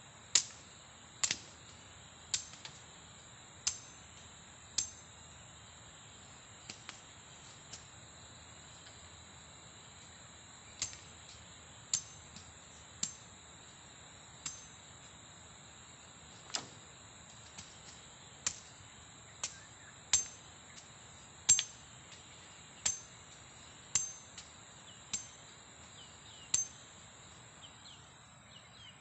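Machete chopping wooden stakes: some twenty sharp blows, irregular and roughly a second apart with a pause of a few seconds about a third of the way in, each with a short metallic ring.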